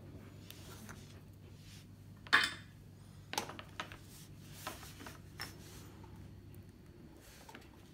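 Small tools and parts handled on a workbench cutting mat: a sharp clack about two seconds in, then a few lighter taps and rubs, over a faint low hum.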